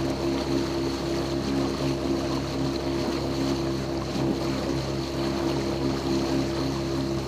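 Outboard motor of a wooden fishing boat running at steady cruising speed, its even drone over the rush and splash of water along the hull.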